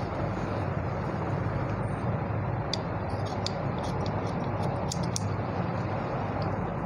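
Tailor's shears snipping off excess fabric: several short, sharp clicks of the blades, mostly in the second half, over a steady background noise.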